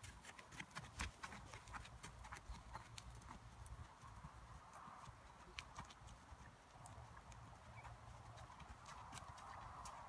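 Hoofbeats of a horse trotting on a sand arena: soft, quick ticks, thickest in the first few seconds and thinning out as the horse moves away.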